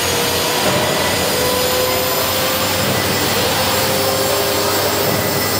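Radio-controlled model helicopter running at a steady speed on the pad: a constant motor whine over the rush of the spinning rotor.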